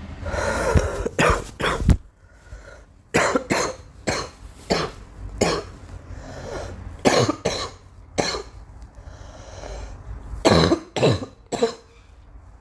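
A girl coughing over and over in short bouts: a quick run of coughs at the start, single coughs spaced about a second apart through the middle, and another run of three or four near the end.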